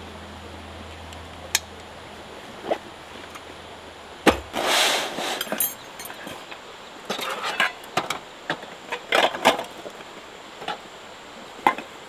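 A low steady hum stops about four seconds in and is followed by a short hiss. Then come scattered clinks and knocks of hard objects being handled.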